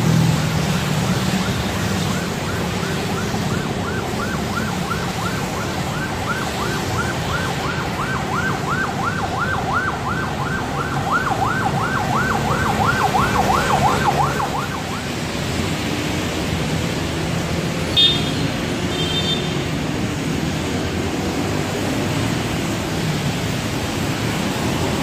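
A siren in a fast yelp, its pitch rising and falling about three times a second, over steady traffic noise of vehicles on a wet road. The siren fades out about halfway through. Later come two short high-pitched beeps.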